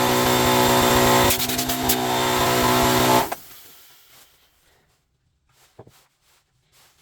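Bosch angle grinder's electric motor running at full speed with a steady whine, tested after its carbon brushes were replaced; it is switched off about three seconds in and quickly winds down. A few faint clicks follow near the end.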